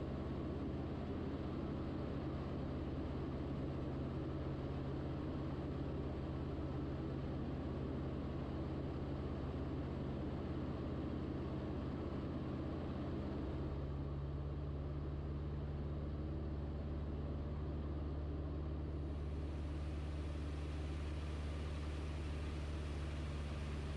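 Single-engine light aircraft's piston engine and propeller droning steadily, heard from inside the cockpit. The engine note shifts slightly a little over halfway through.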